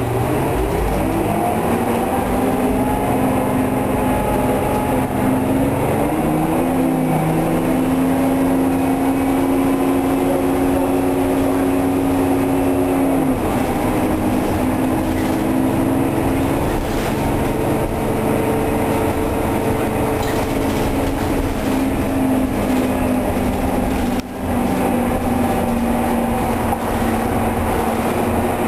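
Detroit Diesel 6V92TA two-stroke V6 diesel of a 1990 Orion I transit bus, heard from inside the cabin as the bus accelerates. The engine note climbs for several seconds, then drops back about seven seconds in and again around thirteen seconds as the ZF automatic transmission shifts up, and the engine runs on steadily after that.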